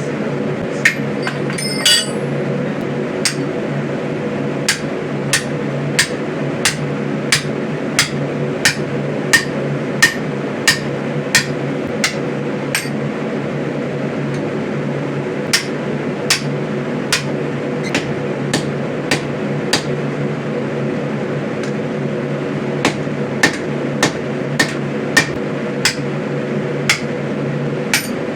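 Blacksmith's hammer striking the hot axe head on the anvil while it is forged to shape: sharp strikes about one and a half a second, broken by two short pauses, over a steady hum.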